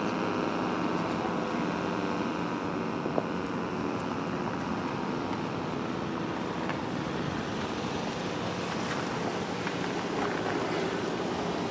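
Steady rushing wind noise on the microphone. The last of a siren's falling tone fades out during the first two seconds.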